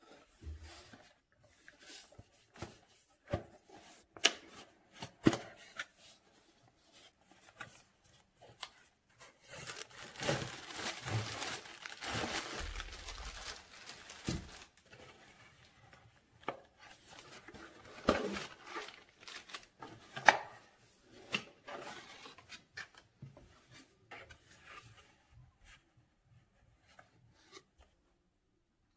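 Cardboard product box being opened and plastic-bagged parts handled: packaging rustling and crinkling, with scattered sharp taps and knocks. A longer stretch of rustling and tearing runs through the middle.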